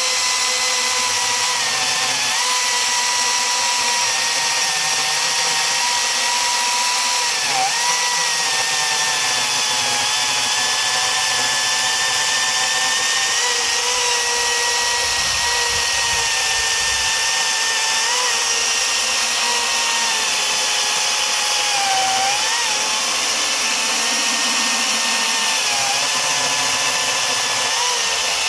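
Harbor Freight Atlas 18-inch battery-powered chainsaw running at full throttle, cutting through solid sycamore: a steady high electric-motor whine with the chain's rasp. Its pitch sags slightly a few times as the chain bites into the wood, then recovers.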